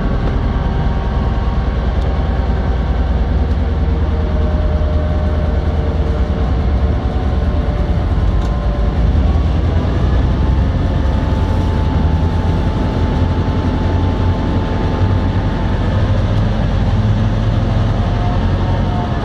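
NoHAB M61 diesel-electric locomotive's EMD 567 two-stroke V16 engine running under traction load, heard from inside the cab as the locomotive moves: a steady low drone with a few held tones above it that shift slowly in pitch.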